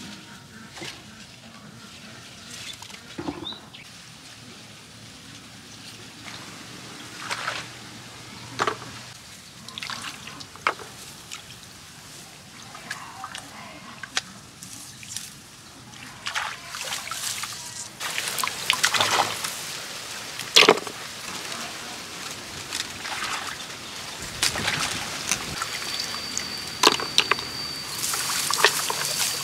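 Shallow muddy field water sloshing and trickling as hands grope through it, with scattered small splashes and knocks that come more often in the second half as snails are picked up and dropped into a plastic bucket.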